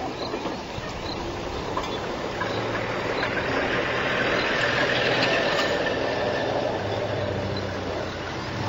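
A vehicle engine running steadily, growing louder in the middle of the stretch and easing off slightly near the end.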